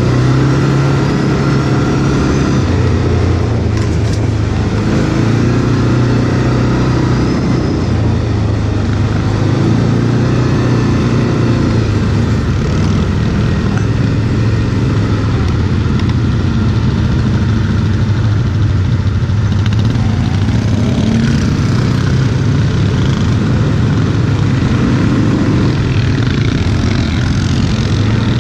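Quad bike (ATV) engine being ridden off-road, its revs rising and falling again and again with throttle changes.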